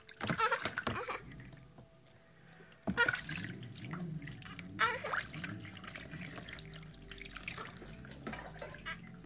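Bathwater splashing and trickling as a hand scoops and pours it over a newborn in a plastic baby bathtub, in a few separate splashes: near the start, about three seconds in, and about five seconds in.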